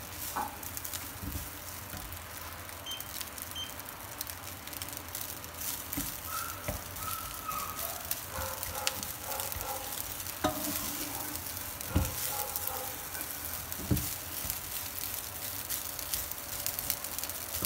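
Cold cooked rice sizzling as it is stir-fried in a nonstick frying pan, with a wooden spatula scraping and knocking against the pan; two louder knocks come in the second half.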